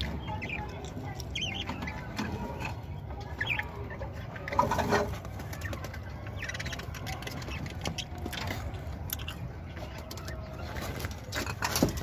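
Budgerigars chirping in short, scattered calls over a steady low rumble.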